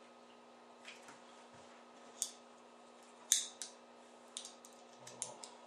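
Light, sharp clicks and taps of small metal parts being handled as the EOTech holographic sight's mounting bolt is worked on, about half a dozen scattered through, the loudest a little past the middle.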